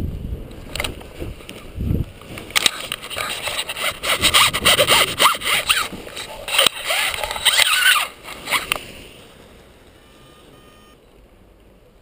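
Wind rushing on the microphone cuts off as the paraglider lands. Then several seconds of scraping, rustling and clicking follow as the harness, risers and lines are handled, fading out about nine seconds in.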